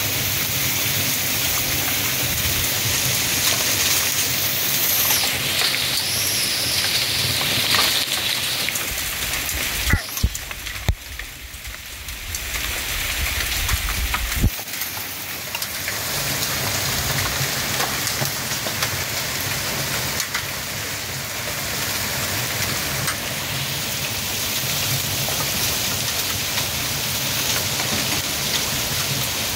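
Heavy rain pouring down in a severe thunderstorm, with strong gusting straight-line winds. A brief lull with a couple of sharp knocks about ten seconds in.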